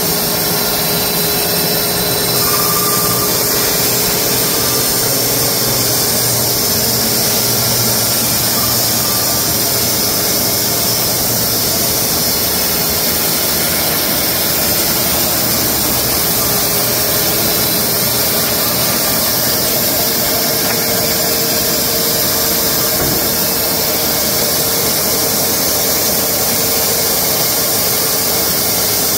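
Wood-Mizer LX250 electric bandsaw mill running steadily, its band blade cutting boards from a horse chestnut cant.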